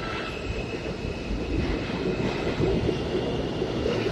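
R160 subway train pulling out of the station and moving away along the track, its wheels and motors running with a steady rumble and a thin, steady high whine over it.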